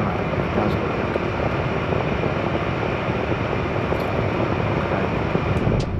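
A small electric blower running steadily: a loud, even rush of air.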